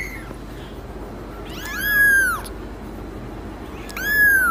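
Young kitten meowing: two high, thin meows, about two seconds in and near the end, each rising then falling in pitch, with the end of a meow at the very start.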